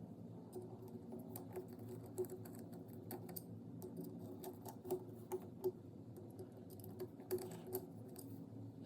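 Faint irregular clicks and light taps, a few sharper ones standing out, over a steady low hum.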